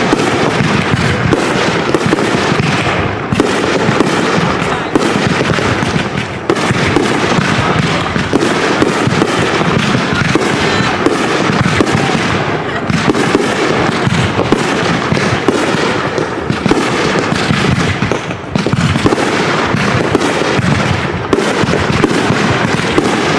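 Backyard consumer fireworks going off in a dense, continuous barrage: rapid overlapping bangs, pops and crackling, with a few short whistles among them.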